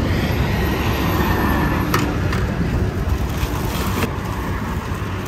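Steady traffic and wind noise on a highway bridge, with a low rumble underneath. A couple of light clicks come about two and four seconds in.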